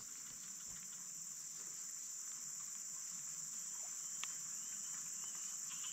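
Steady high-pitched insect chorus, a continuous cricket- or cicada-like drone from the surrounding tropical vegetation. A faint click sounds about four seconds in, and a few faint short chirps come near the end.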